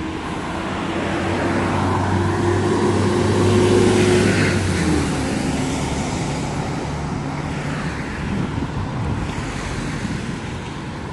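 A car drives past on the road, its engine hum and tyre noise growing louder to a peak about four seconds in, then dropping in pitch as it passes and fading into steady traffic noise.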